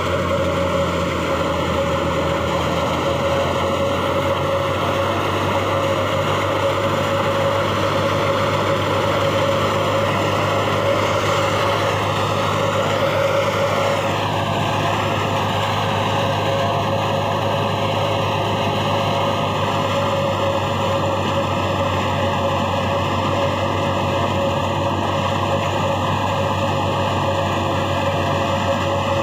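Stationary wheat thresher running steadily while wheat sheaves are fed into it: a loud continuous mechanical drone with a steady low hum and a steady higher tone.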